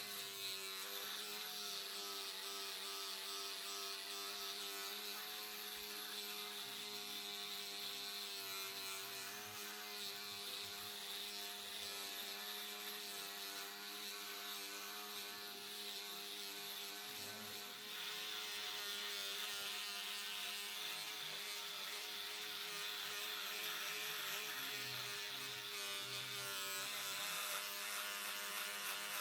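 Small electric motor of a barber's tool running steadily, a buzzing hum with a slightly wavering pitch over a hiss. It gets a little louder about two-thirds of the way through.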